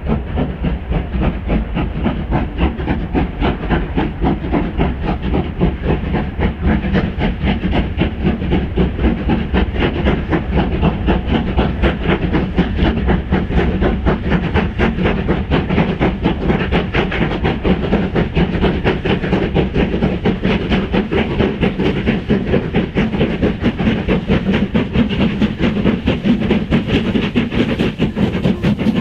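Steam locomotive working under power on the main line, its exhaust beating in a fast, even rhythm.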